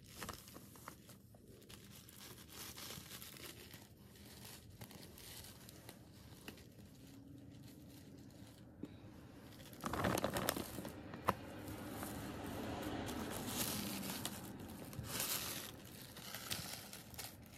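Rustling and crinkling of packaging as a cosplay wig and costume pieces are handled. It gets louder from about ten seconds in.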